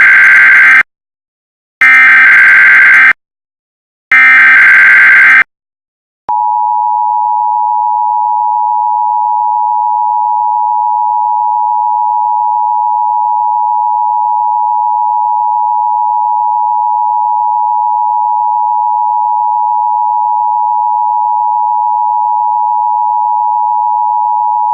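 Emergency Alert System SAME header: three bursts of buzzy data tones about a second each, the first already under way. About six seconds in, the EAS attention signal begins, a steady two-tone 853 and 960 Hz hum held unbroken.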